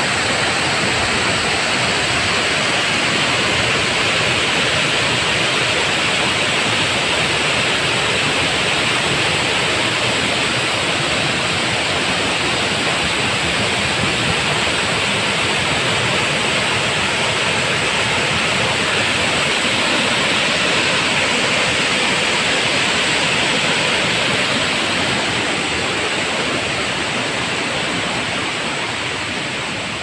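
Steady rushing of a waterfall about ten metres high. It eases off slightly in the last few seconds.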